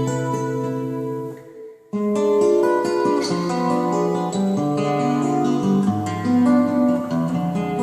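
Solo acoustic guitar playing a slow fingerpicked instrumental. Ringing chord notes die away to a short break about two seconds in, then a new run of picked notes starts, each one left to ring into the next.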